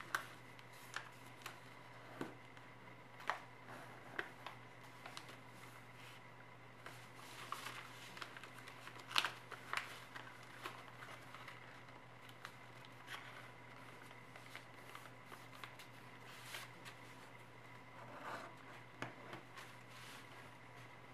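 Sheet of origami paper crinkling and rustling as it is folded and creased by hand, in irregular soft crackles and taps, the loudest about nine seconds in. A faint steady hum runs underneath.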